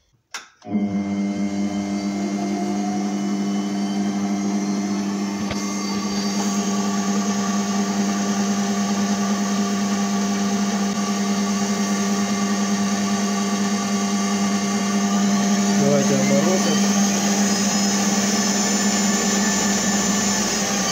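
A MetalMaster MML 2870 MV lathe-mill switched on with a click and its spindle motor then running at a steady speed, a loud, even hum, growing a little louder about two-thirds of the way in.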